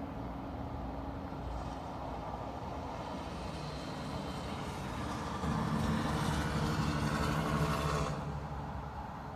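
Steady outdoor background hum like traffic. About five seconds in a louder engine-like sound joins it at a steady pitch, then cuts off about three seconds later.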